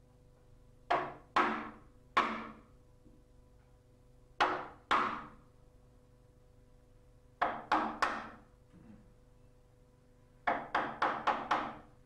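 Wooden mallet striking a wood chisel, chopping a shallow recess into the edge of a timber door for a lock face plate. Short groups of sharp knocks: three, then two, then three, then a quicker run of five near the end.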